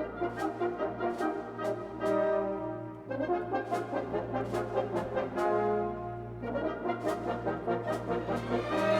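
Music led by brass instruments, sustained chords over a steady beat, with a constant low hum underneath.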